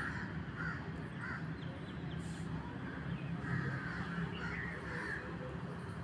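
Cawing birds, crow-like, call several times in short separate caws over a low steady background hum.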